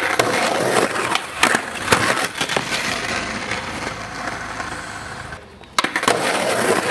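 Skateboard wheels rolling on concrete, with sharp knocks and clatter of the board about a second and a half in, again shortly after, and near the end.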